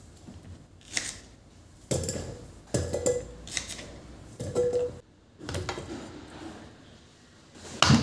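Kitchen knife cutting the ends off raw green bananas on a wooden chopping board: a series of separate knocks, a few with a short ring, and a louder knock near the end.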